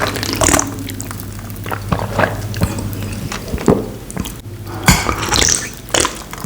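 A person gulping a cold Pepsi from a glass: wet swallows and mouth clicks every half second to a second, over a steady low hum.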